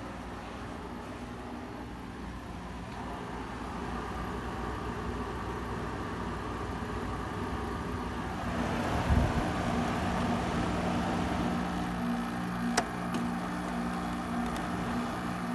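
Frigidaire 5000 BTU window air conditioner running on low cool with its compressor and fan on, a steady hum. It gets a little louder about halfway through, with a low thump and, a few seconds later, a sharp click.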